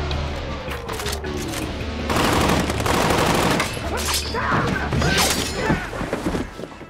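Film action soundtrack: a dense run of gunshots and fight impacts over a dramatic music score, loudest in the middle.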